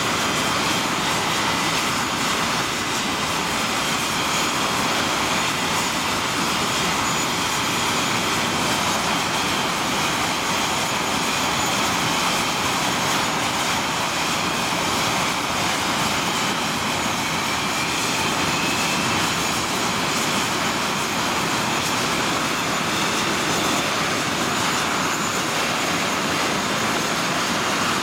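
English Electric Lightning's twin Rolls-Royce Avon turbojets running steadily on the ground: an even jet rush with a faint high whine, holding the same level throughout.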